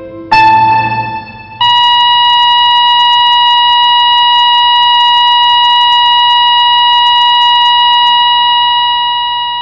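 A brief note, then a single steady electronic tone held for about eight seconds and fading out near the end: a heart monitor's flatline.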